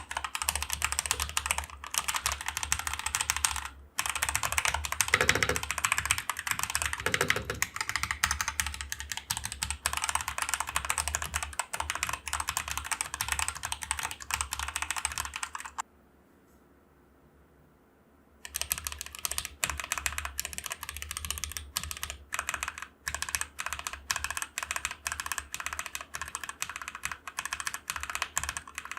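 Typing on a mechanical keyboard fitted with Akko CS Jelly Black linear switches: a quick, dense run of key strokes. It breaks off for about two seconds past the middle, then resumes, as the switches are demonstrated both stock and lubed.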